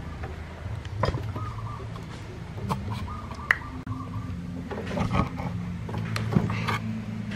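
Kitchen knife blade punching into and prying open the lid of a tin can: a scattered series of short, sharp metallic clicks and scrapes over a steady low hum.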